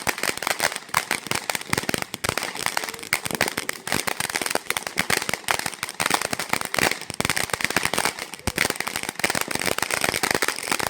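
Firecrackers going off in a dense, rapid run of sharp pops and crackles without a break.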